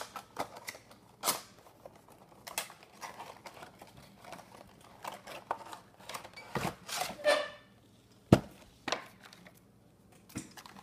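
A Funko Pop cardboard box and its clear plastic insert being opened and handled: scattered clicks, rustles and plastic crinkles, with one sharp click a little past eight seconds in.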